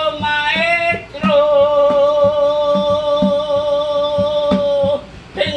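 A man singing into an empty plastic cat-litter bucket, which he uses as a resonator: a short phrase, then one long held note from about a second in until near the end. A steady low beat runs underneath.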